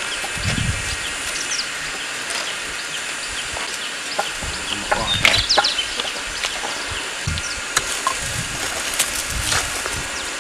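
Countryside ambience: small birds giving many short, high, falling chirps over a steady hiss, with a few dull low thumps from movement nearby.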